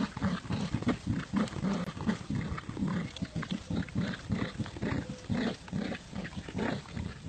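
Dogs growling in play while tugging on a toy: a steady run of short, rough growls, several a second.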